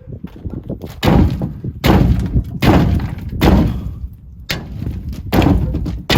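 Sledgehammer blows on the steel front wheel rim of a 1925 Galion, seven heavy strikes about a second apart, each with a short fading ring: beating the old tyre bead loose from the rim flange.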